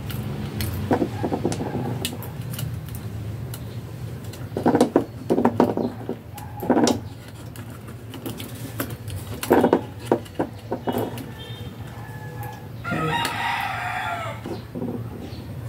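A rooster crowing: several shorter calls, then one longer crow about 13 seconds in. Small sharp clicks of wire connectors being handled are heard between the calls.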